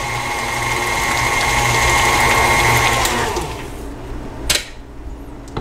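KitchenAid Artisan stand mixer running with its flat beater turning through thick cheese spread, a steady motor whine. It is switched off about three seconds in, the whine sliding down in pitch as the motor winds down, and a sharp click follows a second later.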